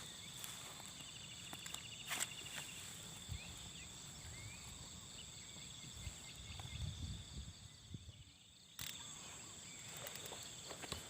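Insects chirring steadily in a high-pitched drone, with scattered sharp clicks and a brief low rumble a little past the middle.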